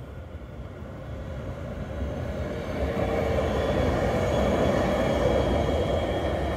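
Articulated tram passing on street track: the rumble of its wheels on the rails grows from the start, is loudest through the middle, and eases slightly near the end, with a short whine about three seconds in.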